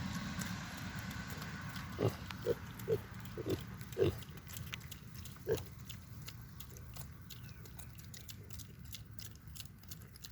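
Pig eating: six or seven short grunts in its first half, with wet chewing and smacking clicks that carry on after the grunts stop.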